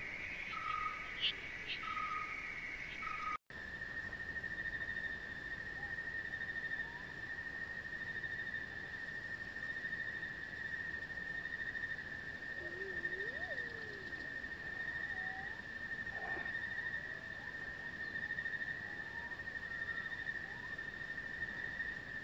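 Nature ambience of a steady high insect trill, with a few faint, scattered bird-like chirps and glides over it. A brief dropout a few seconds in separates it from a stretch of short repeated chirps.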